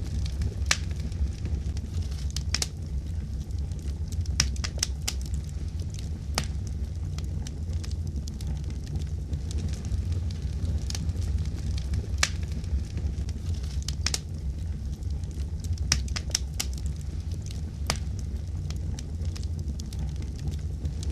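Crackling fire: irregular sharp pops and snaps over a steady low rumble.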